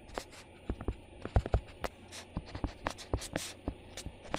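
Stylus tapping and sliding on a tablet surface while hand-drawing arrows, boxes and letters: an irregular run of sharp clicks and short scratchy strokes.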